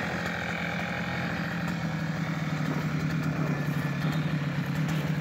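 Petrol brush cutter's small two-stroke engine idling steadily, the trimmer fitted with a boat outboard attachment.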